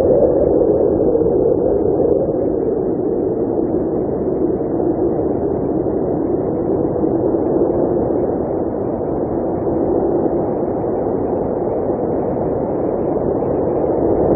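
Blizzard wind blowing steadily, a low rushing sound with a hollow tone that drifts slowly lower and back up.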